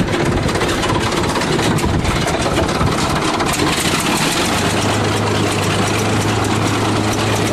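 Engine idling steadily, with a steady low hum setting in about four and a half seconds in.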